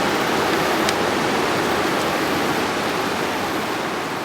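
Steady rush of river water over rapids, beginning to fade near the end.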